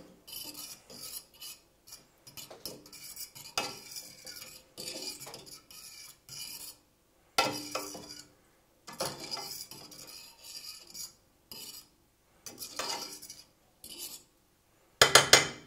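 A spoon stirring soup in a stainless steel pot, scraping and clinking against the pot's sides in irregular strokes, with a louder clatter near the end.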